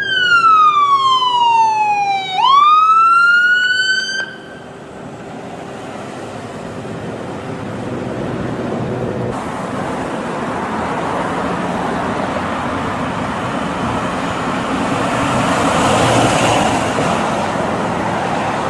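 Ambulance siren: one long falling sweep, then a sharp rise, cutting off about four seconds in. City street traffic noise follows, slowly swelling and easing off.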